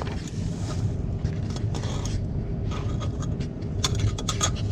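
Steady low machinery hum, with a quick run of sharp clicks and scrapes about four seconds in, like small parts or tools being handled.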